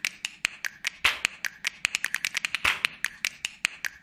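A fast, even run of sharp clicks, about six a second, with two short swishes, one about a second in and one near three seconds.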